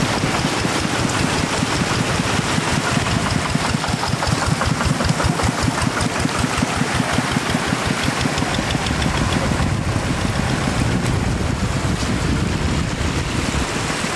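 Engine of a small farm tractor running steadily with a fast, even knock, over water rushing across the road.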